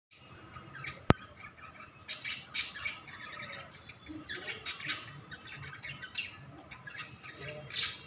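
Cockatiels chirping, a string of short, high calls coming one after another, with a single sharp click about a second in.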